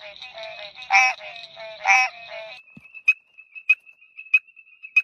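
Frog calls in two back-to-back clips: first a loud croak about once a second over a busy chorus of fainter calls, then, about two and a half seconds in, a thin steady high-pitched note with a short sharp call about every two-thirds of a second.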